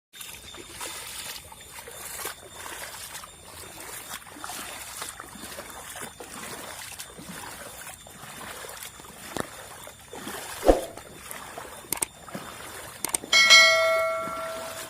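Floodwater running with a steady hiss, broken by a few sharp knocks; near the end a single bell-like metallic ring sounds and dies away over about a second and a half.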